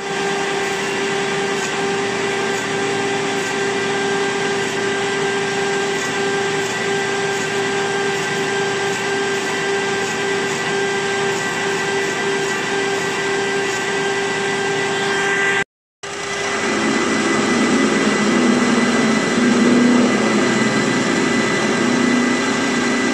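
Metal lathe running with a steady whine while a parting tool cuts through a spinning bearing tube to split it in two. About 16 seconds in the sound cuts off abruptly and is followed by the lathe drilling the work with a large twist drill fed from the tailstock, louder and with a wavering low hum.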